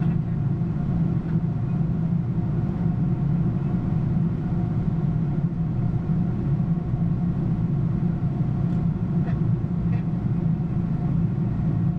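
Steady low rumble of flight-deck noise aboard a Boeing 787 Dreamliner on approach, with faint steady tones above it.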